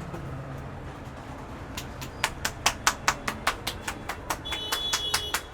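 A barber's hands tapping the head in quick percussive massage strokes: sharp claps about five a second, starting about two seconds in, over a low background hum.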